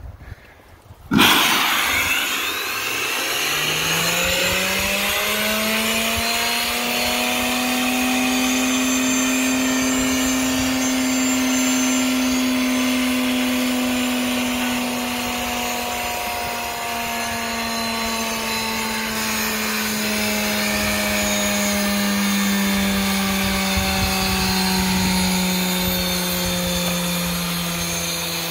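A small homemade steam turbine fed from a 100 psi woodstove boiler: about a second in, steam rushes through with a loud hiss, and the turbine's whine rises in pitch as it spins up over a few seconds, then holds. In the second half the whine slowly sinks in pitch as the turbine slows, a sign that the woodstove boiler cannot keep up with the turbine's steam demand.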